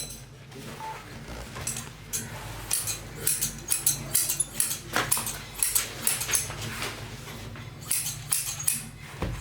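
Irregular light metallic clicks and taps of hand tools at work, over a steady low hum.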